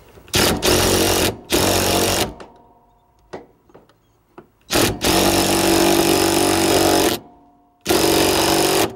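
DeWalt cordless impact driver hammering a seat-mounting bolt tight, in several runs with pauses between them; the longest run lasts about two seconds, midway through.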